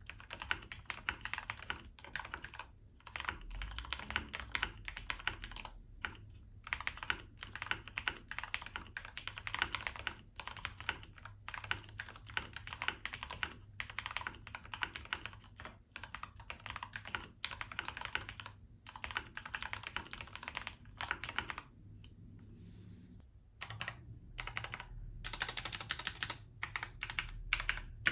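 Typing on a custom tenkeyless mechanical keyboard built from an XD87 hot-swap kit, its switches lubed with Krytox 205g0 and its stabilizers treated with dielectric grease: a continuous stream of keystrokes, with a brief pause a little over 20 seconds in and quicker typing near the end.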